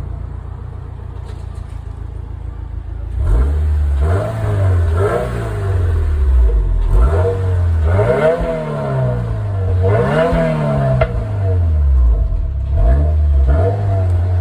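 2022 Subaru WRX's turbocharged 2.4-litre flat-four engine idling steadily for about three seconds, then revved up and let fall back several times in quick succession.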